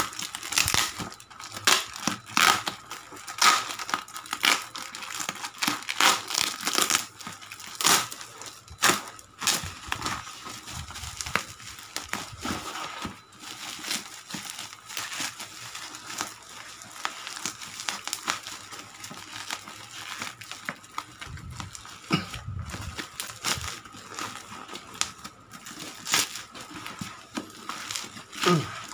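Black plastic parcel wrapping crinkling and tearing as it is pulled off a cardboard box by hand. The crackles and rips are sharp and irregular, loudest in roughly the first ten seconds.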